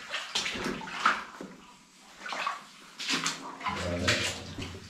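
Water sloshing and splashing in irregular surges, as of a person wading in a flooded mine adit.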